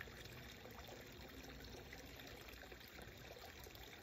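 Near silence: a faint, steady outdoor background hiss.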